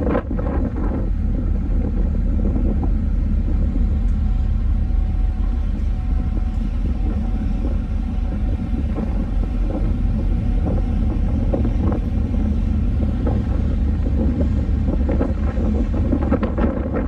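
Steady low rumble of a car ferry's engines under way, heard on deck.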